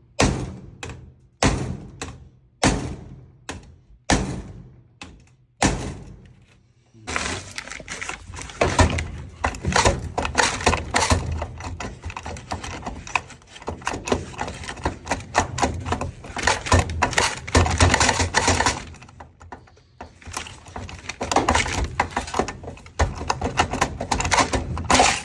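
Hammer blows on the metal face of a coin-box lock, bending back the pieces cut into it. First come single blows about a second apart. About seven seconds in they give way to a fast, dense run of taps and clatter, which breaks off briefly near the end and then resumes.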